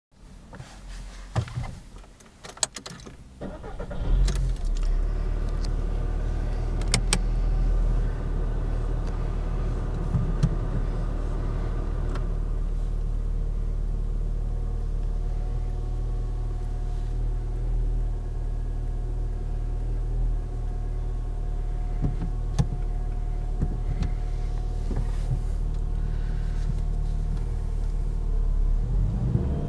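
A Volkswagen Golf's engine: a few clicks and knocks, then about four seconds in the engine starts and settles into a steady idle.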